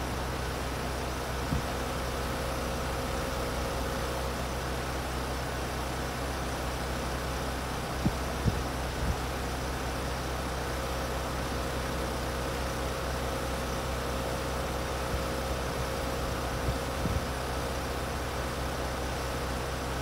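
Gibson 3-ton heat pump outdoor unit running in winter heating mode: a steady hum of the compressor with a faint steady tone, under the rush of air from the spinning condenser fan. A few short low knocks come about eight to nine seconds in and again near the end.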